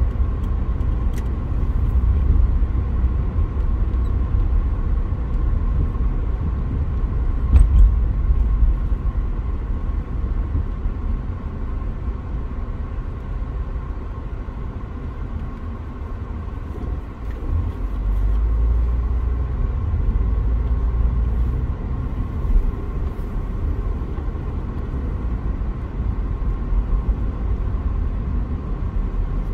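Jet airliner engines heard across the airfield: a steady low rumble with a faint, even whine above it, swelling a little over the second half.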